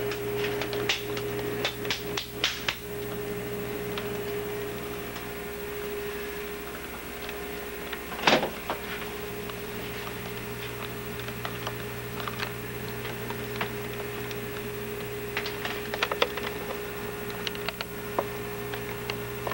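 Steady electrical hum with a few light clicks and taps, and one louder knock about eight seconds in.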